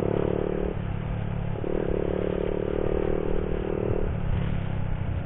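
Motorcycle engine running steadily at riding speed. A higher hum cuts out at about three-quarters of a second, comes back about a second later, and fades out about four seconds in.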